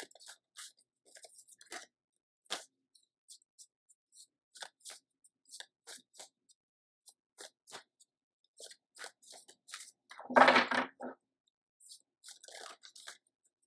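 A deck of gold-edged tarot cards shuffled by hand, overhand: soft, irregular clicks and slides of cards against each other, with a louder flurry of card noise a little past ten seconds in.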